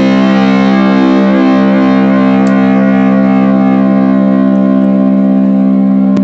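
Electric guitar holding one long sustained chord that rings steadily with a slight wavering in pitch.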